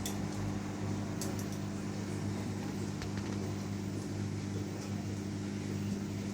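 Front-loading washing machine running with a steady, even hum at an unchanging speed, with a few faint clicks about a second and three seconds in.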